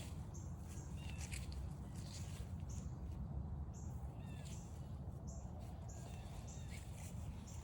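Small wild birds giving short, high chirps and brief gliding call notes every second or so, over a steady low rumble.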